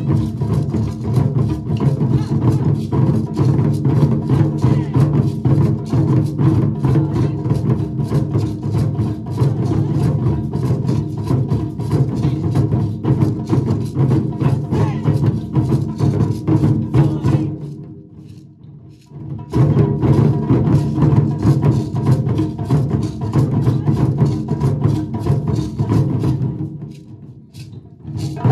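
Taiko ensemble drumming: barrel drums on slanted stands struck with wooden sticks in a fast, driving rhythm. The playing breaks off twice, for about two seconds each, about 18 and 27 seconds in, then comes back in together.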